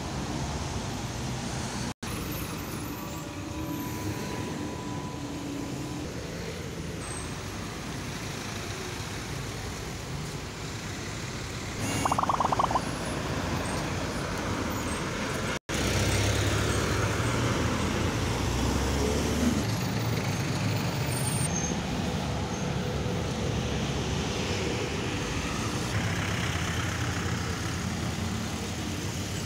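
Congested city street traffic: buses, a minibus and cars idling and creeping past with a steady engine rumble, the rumble growing louder as a bus pulls close in the second half. A brief high tone sounds about twelve seconds in.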